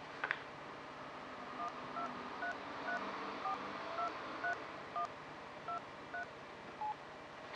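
Cordless phone keypad sounding touch-tone (DTMF) beeps as a phone number is dialled: about eleven short two-note beeps at an uneven pace, after a sharp click about a third of a second in.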